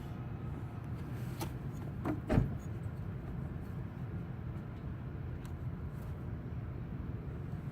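Steady low rumble of vehicle noise, with a single dull knock about two seconds in and a few light clicks.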